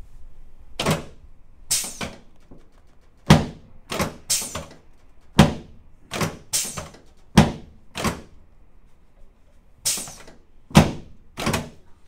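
Chiropractic table thudding a dozen or so times under hand thrusts on the lower back, a run of sharp knocks spaced irregularly, some in quick pairs. These are adjustments of the left sacroiliac joint and sacrum, which the chiropractor found out of line.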